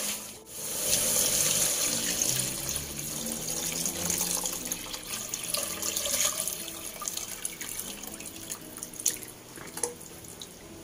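Beef bone stock poured from a bowl into a pot of fried chilli paste: a steady splashing pour that gradually fades. A few light clicks of the bowl against the pot come near the end.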